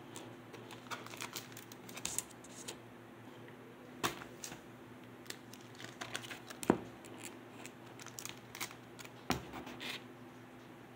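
Clear plastic sleeves on vinyl record jackets crinkling as the albums are handled and swapped, with scattered rustles and a few sharper knocks of cardboard jackets.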